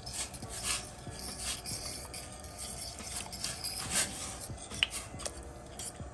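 A metal fork scraping and stirring against the bottom and sides of a stainless steel pot of rice in water, in short rasping strokes about two a second, with one sharp clink of metal on metal near the end.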